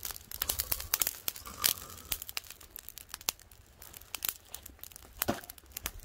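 Charcoal fire crackling under whole frogs grilling on a wire mesh grill, with irregular sharp pops and clicks.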